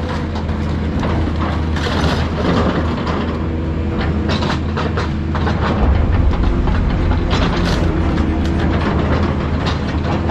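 Excavator's diesel engine running steadily under load, with frequent metal clanks, knocks and scraping as its grapple works through torn-up car scrap.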